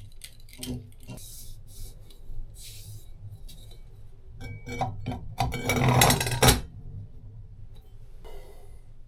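Hand tools working metal plumbing parts: scattered scraping, rubbing and clicks, with a louder burst of rattling metal about six seconds in and a sharp knock at the very end.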